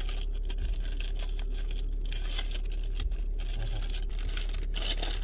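Paper burger wrapper crinkling and tearing as it is unwrapped by hand, over a steady low hum in a car cabin.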